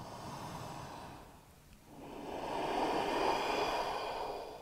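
A woman's deep, audible yoga breathing held in downward dog, in the throat-narrowed ujjayi style of Ashtanga. Two long breaths: a shorter, softer one, then a longer, louder one from about two seconds in.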